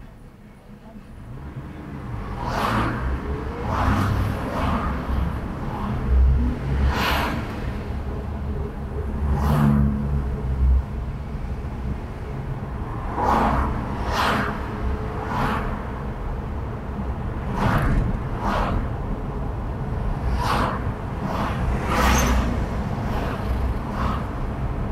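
Car driving through city traffic: a continuous low rumble of engine and road. About fifteen short whooshes of vehicles rushing past are spread through it, and the rumble grows louder over the first few seconds as the car gets moving.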